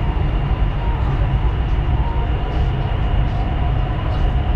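Electric Dubai Metro train running at speed on an elevated track, heard from inside the carriage: a steady low rumble with a faint steady whine above it.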